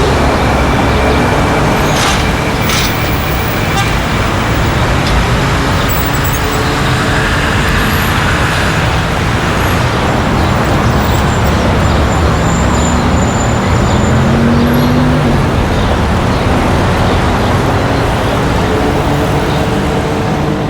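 Continuous city street traffic: a steady wash of vehicles with engine hum underneath. There are a few sharp clicks about two seconds in, and an engine rises in pitch briefly about fifteen seconds in.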